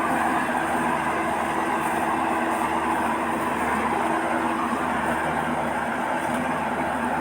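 Combine harvester running steadily, its engine and machinery giving a constant hum over a dense mechanical noise.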